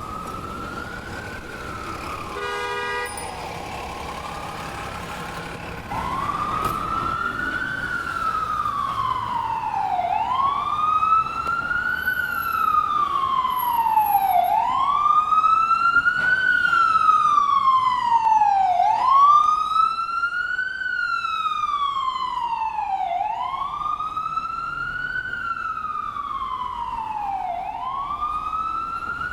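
Ambulance siren wailing, its pitch sweeping up and down about every four seconds, louder from about six seconds in. A short horn blast sounds about three seconds in.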